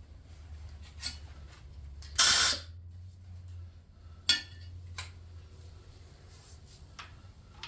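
Workshop handling sounds: a short loud burst of noise about two seconds in, then a few sharp clicks and clinks.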